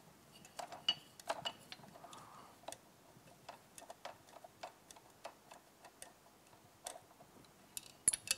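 Faint, irregular metallic clicks, a few a second, from a 10 mm wrench working a small nut on an outboard motor's shift shaft.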